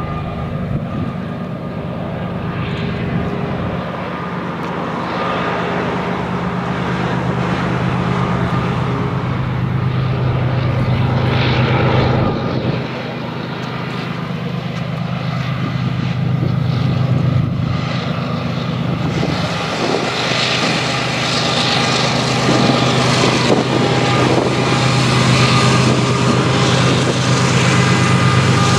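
BNSF diesel-electric freight locomotives running, a steady low engine drone that grows louder as the lead units draw near. A broader hiss joins in about two-thirds of the way through.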